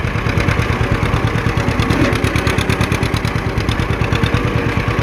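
John Deere 50 tractor's two-cylinder engine running steadily with an even, rapid pulsing exhaust beat.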